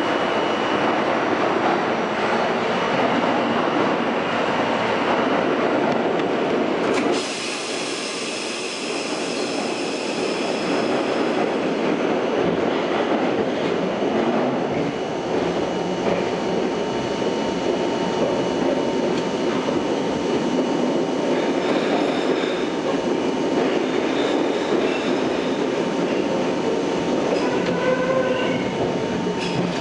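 R42 subway car heard from inside, running through the tunnel: a steady rumble and rattle of wheels on rail. The noise drops abruptly about seven seconds in and then builds again, and a few brief high wheel squeals come near the end.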